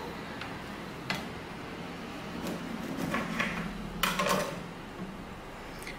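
A few light knocks of a knife cutting a lemon on a wooden chopping board, the loudest pair about four seconds in.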